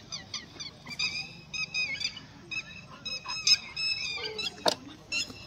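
Repeated short, high-pitched honking calls from a bird, coming in quick runs, with a single sharp click near the end.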